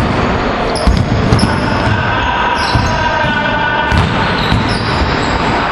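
A basketball bouncing on a gym's wooden floor during play, with a few sharp thuds about a second in and again near four seconds.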